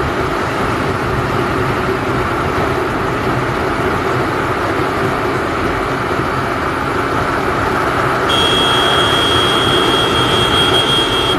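Motorcycle cruising at speed on a highway: steady engine hum under wind and road noise rushing over the microphone. A steady high-pitched tone joins about eight seconds in and lasts about three seconds.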